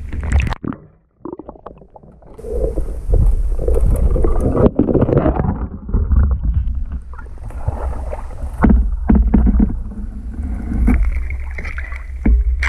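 Water splashing and sloshing around a swimmer at the surface while thin new ice is broken up, with several sharp cracks and knocks, the loudest about five seconds in, over a low rumble of water against the microphone.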